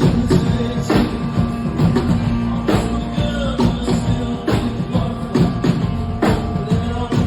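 Rock song with a full band: regular drum beats, tambourine and sustained guitar, with a sung melody over it.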